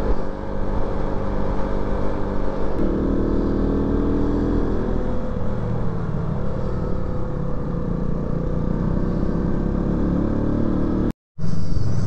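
Motorcycle engine running at speed, with a rush of wind and road noise; the engine note steps up about three seconds in. The sound drops out briefly near the end.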